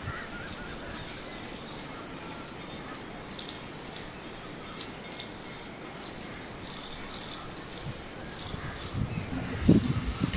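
Outdoor ambience of many small birds chirping in short, high, scattered notes over a steady background hiss. A few louder low knocks come near the end.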